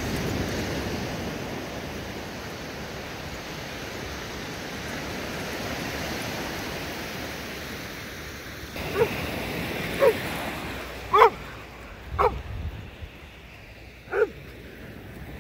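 A dog barks five times, short barks about a second apart in the second half, over the steady wash of surf.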